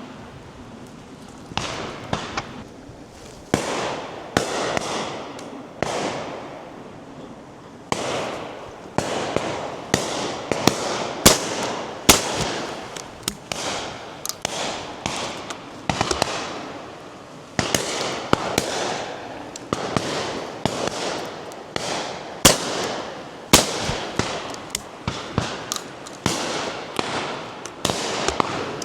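Many 12-bore shotgun shots fired in irregular succession by several guns, some near and loud and others fainter and farther off, each report followed by a rolling echo.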